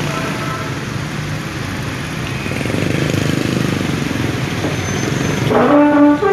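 A bus engine running close by with road noise, growing a little louder in the middle. Near the end a multi-note telolet horn starts up, playing a short tune of stepped tones.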